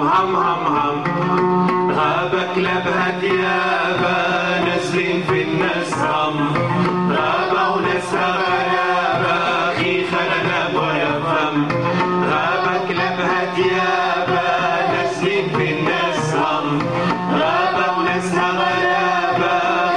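Live Middle Eastern ensemble music: an oud playing the melody over a hand drum's beat, with a wavering, ornamented vocal line.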